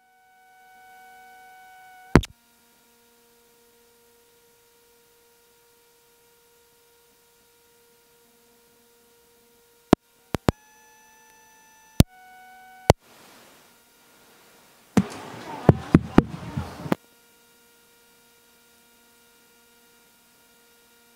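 Steady electronic tones from a microphone or audio device, broken by sharp clicks, with the pitch of the tones changing at each click, then about two seconds of crackling noise. This is the equipment cutting out, which the speaker complains about.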